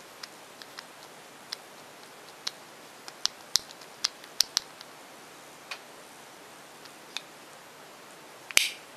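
Small hinged plastic lid of a Num Noms lip-gloss toy clicking as it is worked open and shut by hand: a scatter of irregular clicks, thickest around the middle, and one louder snap with a brief scrape near the end.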